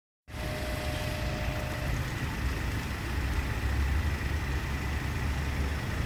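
Steady low rumble of outdoor background noise, with a faint high steady tone running through it.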